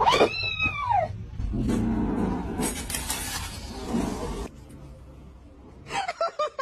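A cat meowing unhappily: one long meow that rises and falls in pitch at the start, then lower, noisier sounds for a few seconds, and a quick run of short sounds near the end.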